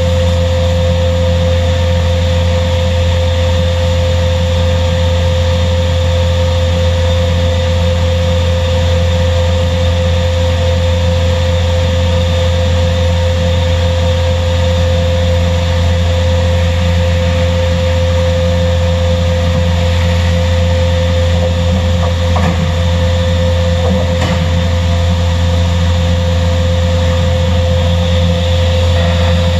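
WARSM-DP5000L computer beam panel saw running in automatic mode on 18 mm particleboard: a loud, steady machine drone with a steady high tone over it.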